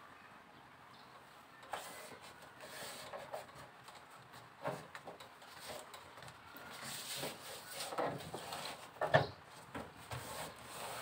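Hands pressing and rubbing a foil-faced adhesive foam heat-insulation pad flat against the underside of a car's steel bonnet: rubbing and rustling with scattered light knocks on the panel, busier in the last few seconds, with the sharpest knock about nine seconds in.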